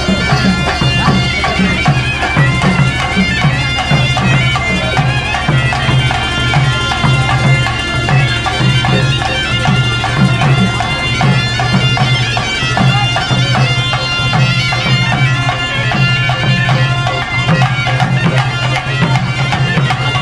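Loud traditional folk music: a reed wind instrument plays a continuous, reedy melody over a pulsing drum beat.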